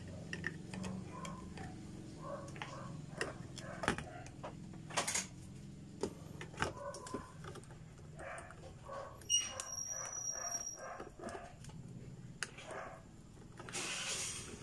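Scattered small clicks and knocks as a TV circuit board is handled and shifted on the metal back panel, with a rustling scrape near the end as the board is lifted.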